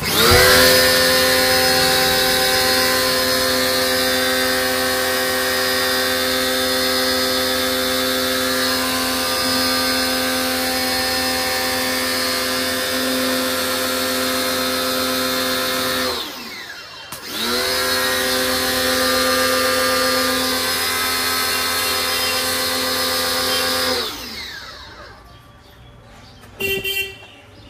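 Electric high-pressure washer's motor and pump whining steadily as it sprays a car tyre, with a rising pitch as it starts. About sixteen seconds in it winds down and stops, starts up again a second later, and winds down again a few seconds before the end.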